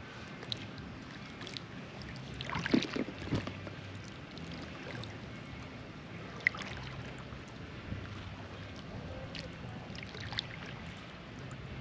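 Water sounds from an inflatable kayak being paddled, with paddle dips and water lapping against the hull over a steady background hiss. A few short sharp splashes and knocks stand out, the loudest about three seconds in.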